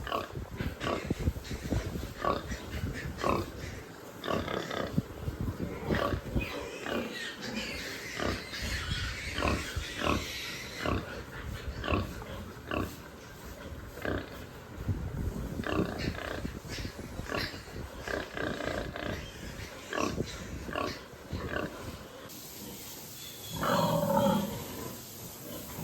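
Pigs grunting, with short irregular grunts throughout and one louder pitched call near the end.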